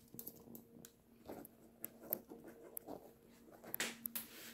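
Faint handling noises: a cardboard box and small items shifted and tapped on a counter, light clicks and rustles, over a steady low hum.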